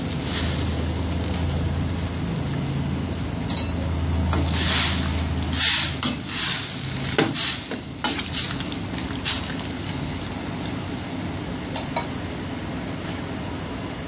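A utensil stirring oyster mushrooms into boiling curry broth in a stainless steel pot: a run of swishes and scrapes from about four to nine seconds in, over a steady hiss.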